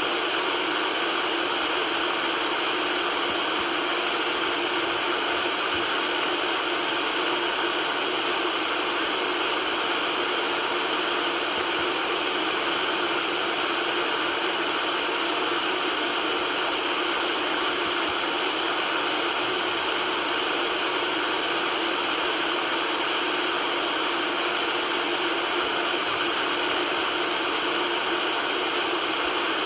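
Steady white noise: an even, unchanging hiss with almost no bass.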